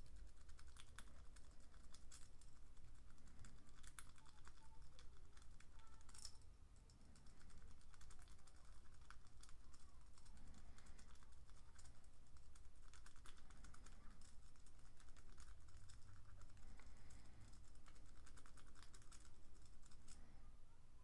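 Lock picks from a dog-tag lockpick set working in a padlock's keyway: a rapid, irregular run of faint metal clicks and scrapes as the pick works the pins against the tension wrench, with a short pause about seven seconds in.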